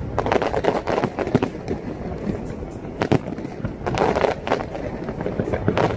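Fireworks going off: a run of crackling bursts in the first second and a half, a single sharp bang about three seconds in, and another cluster of crackles around four seconds, over a steady low rumble.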